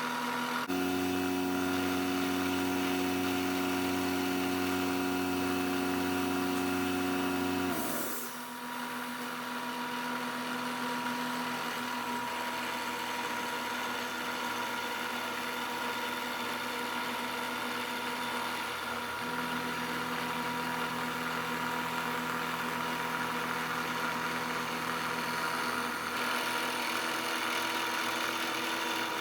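CNC milling machine running a 1/2-inch four-flute end mill on a light skim cut, milling out a pocket: a steady machine hum with several steady tones. It is louder for the first eight seconds or so, then drops to a quieter steady run.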